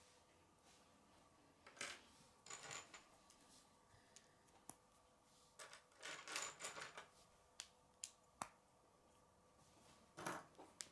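Plastic K'nex rods and connectors clicking and clattering faintly as they are handled and fitted together, in scattered single clicks and short bursts of several clacks.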